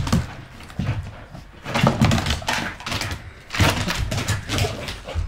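A Dalmatian and a small puppy playing rough together: thuds, bumps and scrabbling paws on a wooden floor and rug. The knocks come in clusters, near the start, around two seconds in, and again through the second half.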